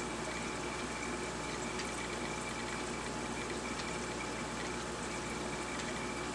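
Steady running water from the aquarium's filtration: a constant splashing hiss with faint scattered ticks and a thin, steady high whine.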